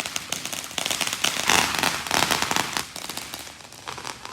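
Fireworks crackling: a dense, rapid run of sharp pops and crackles, loudest about halfway through and thinning out near the end.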